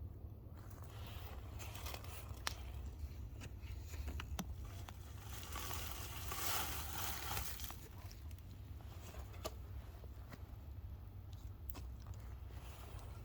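Wood campfire crackling, with scattered sharp pops and a louder stretch of hiss about six seconds in, over a steady low rumble.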